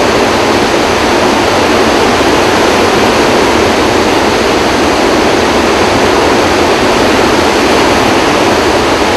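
Loud, steady rushing of floodwater discharging through a dam's open spillway gates. This is a flood release with all eight gates open, about 44,000 cubic feet of water a second.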